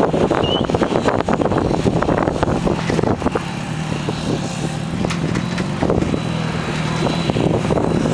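Steady engine drone and road noise of a moving car, with scattered short knocks and rattles.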